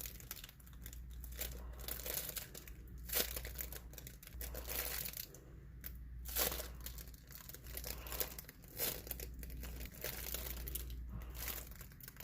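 Irregular crinkling and crackling from a homemade foam squishy being squeezed and handled.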